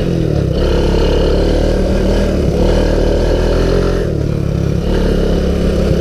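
Honda ATC200S three-wheeler's single-cylinder four-stroke engine running under throttle while being ridden, heard close up from a handlebar-mounted camera. The engine note shifts a little with throttle and eases slightly about four seconds in.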